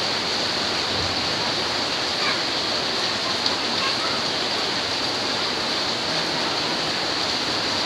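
Heavy rain falling as a steady, even hiss that does not let up.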